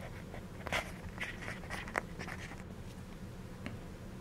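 Soft scrapes and light knocks of a large laptop being handled and turned on a tabletop, a handful of them in the first half, over a low steady hum.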